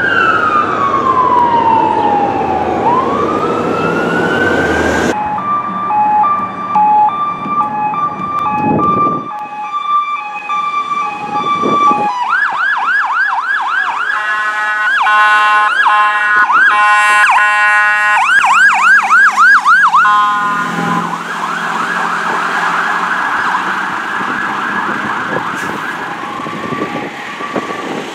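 Fire department emergency vehicle sirens, several in succession: a wail falling and rising again, then a steady hi-lo two-tone, then fast yelp sweeps overlapped by steady horn tones for several seconds. The yelp carries on and fades near the end.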